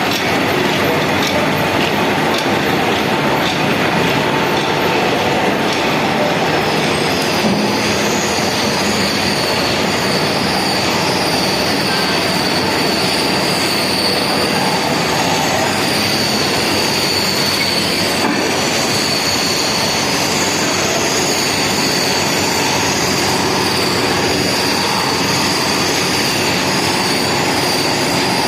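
A heavy metalworking machine running steadily and loudly, with a high, steady metal-on-metal squeal that sets in about a quarter of the way through.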